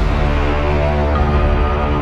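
Intro music with a heavy, steady bass under held notes.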